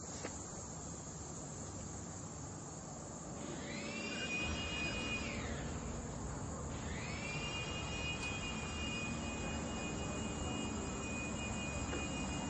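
Insects keep up a steady high drone. About three seconds in, a motor's whine rises in pitch, holds and drops away, then rises again and holds, getting louder.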